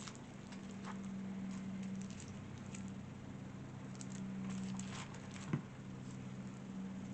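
Light taps and rustles of small packaged polymer clay blocks being handled and shuffled, over a steady low hum. A single soft knock comes about five and a half seconds in.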